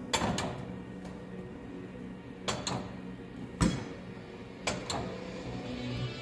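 A handful of sharp knocks and clacks, several in quick pairs, the loudest a little past halfway, over a faint steady hum.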